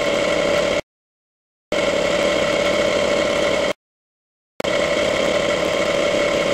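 A motor-driven machine running steadily with a hum, heard in three stretches of about two seconds each, cut off abruptly by total silence between them.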